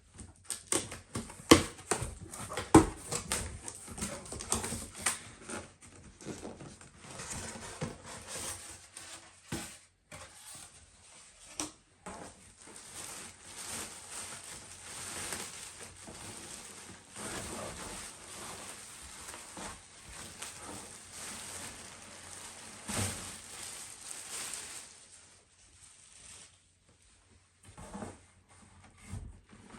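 A cardboard box being opened and its packaging handled by hand. Sharp knocks and taps come in the first few seconds, then a long stretch of rustling and scraping that dies down near the end.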